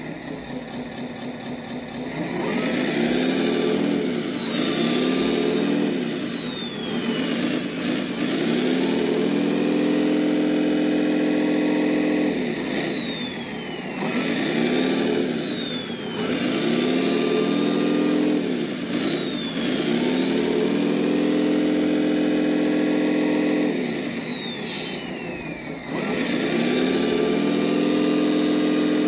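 Simulated truck diesel engine from a scale RC dump truck's sound system, revving up and holding high revs about five times. Each drop in revs brings a falling whistle.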